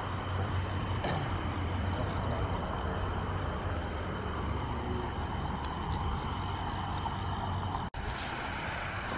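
Steady outdoor background of low rumble and hiss, which drops out for an instant near the end.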